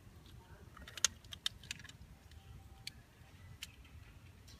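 Small plastic toggle switch on the flip side of a fidget cube being flipped back and forth, giving a series of sharp clicks. The clicks come bunched about a second in, then a few more spaced apart.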